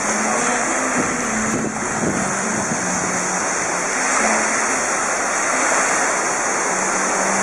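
Twin-engine floatplane running across the water some way off: a steady rushing roar with a faint low hum that comes and goes.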